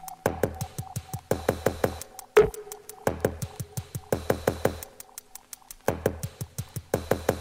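Electronic backing music with a fast clicking beat over pulsing bass, and one louder hit about two and a half seconds in.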